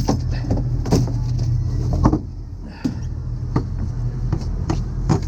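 A boat's engine running with a steady low drone, with frequent short knocks and clunks over it, several times a second, from handling on deck; the knocks fall away briefly just after two seconds in.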